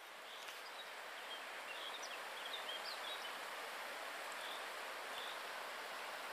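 Shallow mountain river rushing steadily over stones, fading in over the first second or so. A few short bird chirps sound faintly over the water.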